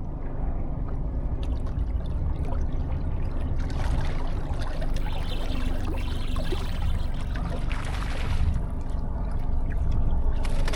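Water trickling and splashing on a fishing boat, over a steady low rumble. The splashing grows louder from about four seconds in to about eight and a half.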